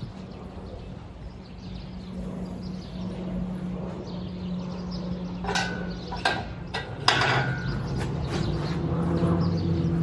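A steady low mechanical hum, like a motor running, that grows louder in the second half, with several sharp knocks a little past the middle, the last and loudest about seven seconds in.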